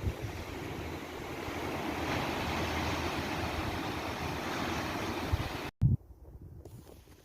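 Ocean surf washing on the shore, with wind buffeting the microphone; the wash swells through the middle. Near the end it cuts off abruptly to a much quieter background with a few faint clicks.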